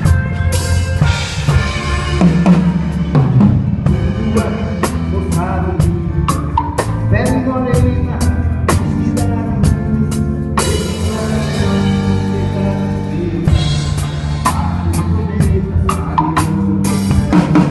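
Live band playing, led by a drum kit with a regular beat of bass drum and snare strikes over bass and other pitched instruments.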